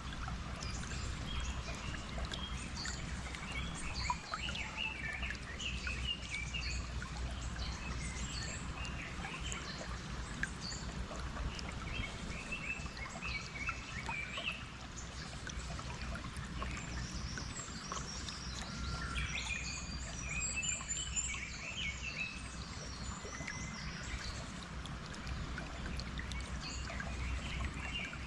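Nature ambience of flowing stream water with many small birds chirping and singing, with a busier flurry of calls about two-thirds of the way through.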